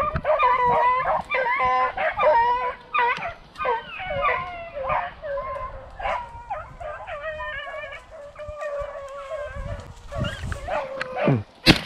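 A pack of beagles baying on a rabbit's trail, several dogs at once. It is loud for the first few seconds, then fainter. A single sharp crack comes near the end.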